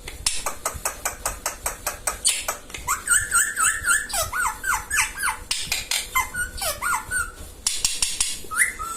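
Indian ringneck parrot making short, repeated warbling calls in two runs around the middle and a brief rising call near the end, over a fast, steady train of sharp clicks.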